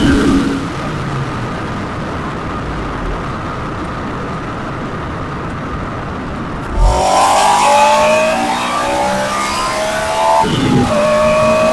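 2002 Honda S2000 AP1's 2-litre, high-revving four-cylinder, heard through microphones at the airbox intake and the tailpipe. It runs light with a low rush for several seconds, then about seven seconds in comes on hard and revs up. Near the end a brief gear change breaks the climb before it pulls again.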